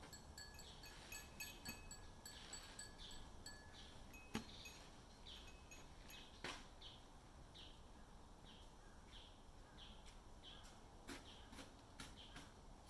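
Japanese shrine wind chimes (fūrin) ringing softly with high, clear tones that fade out after about three seconds, while a bird chirps repeatedly over a faint background.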